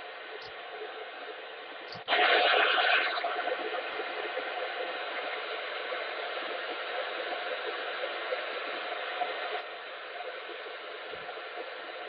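HF ham transceiver's speaker hissing with band noise on single sideband, the distant station faded out. About two seconds in there is a click and the hiss jumps sharply louder as the remote coax switch selects another antenna. It eases after a second and drops back near the end when the switch returns.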